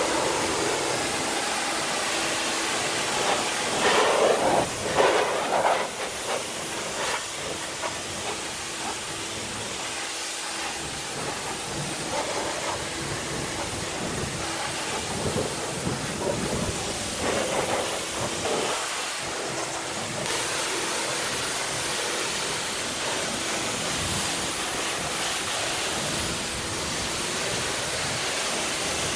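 Pressure washer spraying water onto a wheel and tire: a steady hiss of spray with a faint steady hum beneath it, louder and rougher for a couple of seconds about four seconds in.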